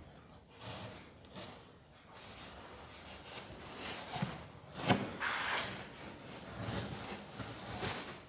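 Rustling and rubbing of things being handled, most likely a parcel and its contents, with a few light knocks scattered through.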